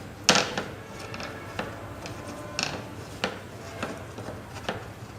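Insulating tape being hand-wrapped around a copper coil winding, giving sharp crackles and clicks about once a second as the tape is pulled and pressed on, the loudest just after the start.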